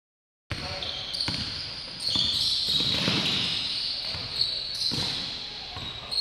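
Sound of a basketball game in a large gym, starting about half a second in: a basketball bouncing on the hardwood court and players moving, with voices echoing in the hall.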